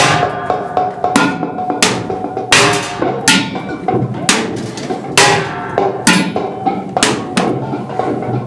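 A drum beaten hard in loud, uneven strikes, roughly one or two a second, with a steady ringing tone beneath them.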